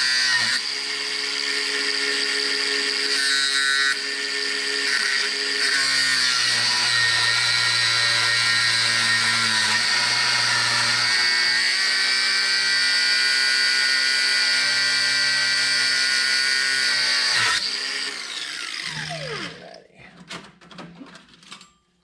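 Power tool cutting through a threaded steel rod: a steady high whine that dips as it bites into the metal. About eighteen seconds in the motor is switched off and winds down, falling in pitch, followed by a few light knocks.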